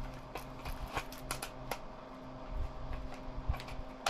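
Small desk fan running with a steady hum and a light whoosh of air, with faint clicks and taps here and there.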